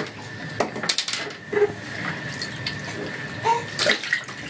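Bathwater splashing and sloshing in an infant bathtub, with a steady watery hiss under many small irregular splashes.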